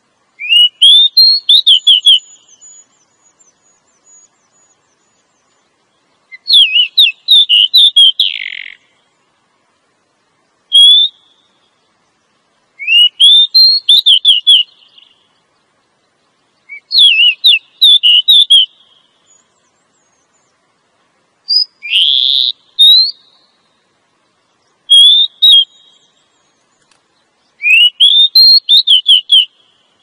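Female Oriental magpie-robin calling: eight short phrases of rapid, whistled chirps that sweep up and then step down, separated by a few seconds of silence. This is the female's call that draws in males.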